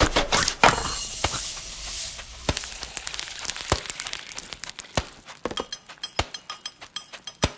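A run of sharp snaps, cracks and pops at irregular intervals, with a dense crackling hiss about a second in that fades after a couple of seconds.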